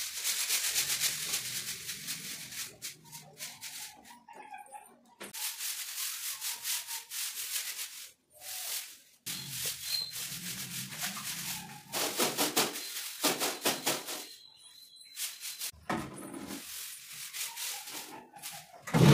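Soft grass broom (phool jhadu) bristles brushing over tiled walls and shelves, in a run of sweeping strokes broken by short pauses. A louder knock comes right at the end.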